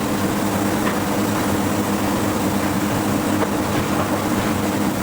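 Steady drone of forge-shop machinery: a low, even hum with a few faint clicks and no hammer blows.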